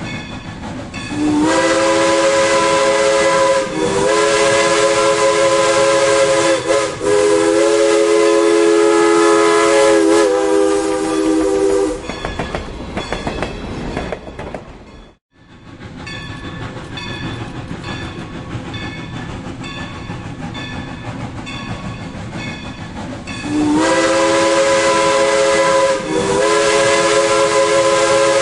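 Steam locomotive whistle blowing a long blast of about ten seconds, broken by a few short breaks, over the steady running and clatter of the passing train. The whistle sounds again near the end, and all sound cuts out briefly about halfway.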